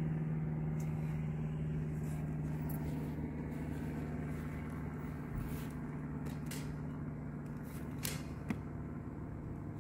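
A steady low mechanical hum that fades slightly, with a few short, light clicks scattered through it.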